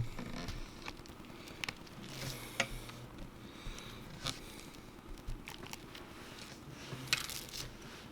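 Faint clicks and light scraping of small repair tools on an iPhone's internal parts as the home button is being taken out, with a sharp click about four times.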